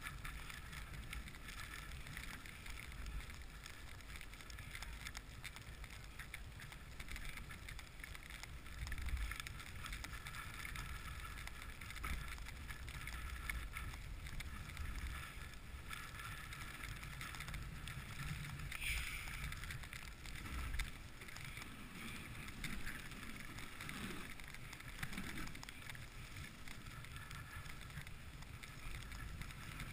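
Dog sled runners sliding over packed snow: a steady hiss and low rumble with some wind on the microphone, and a few brief louder bumps.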